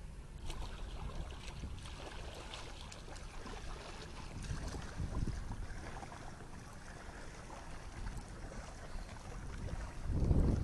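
Water lapping and splashing with irregular paddle strokes as a paddleboard is paddled away across a calm bay.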